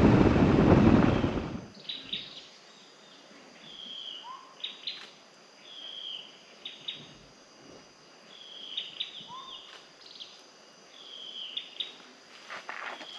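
A bird calling: a short high phrase repeated about every two seconds, with a lower slurred note twice. A loud rushing noise cuts off suddenly about two seconds in.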